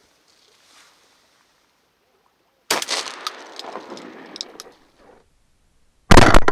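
A shotgun blast near the end, sudden and very loud. About three seconds earlier there is a quieter sharp bang, followed by two seconds of rustling and knocks as the hunter moves in the blind.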